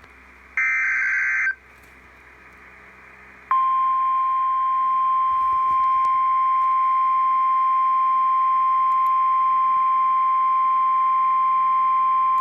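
Emergency Alert System header: a raspy burst of digital data tones lasting about a second, then after a two-second gap a single steady, high alert tone held for about nine seconds, signalling a warning message is about to follow.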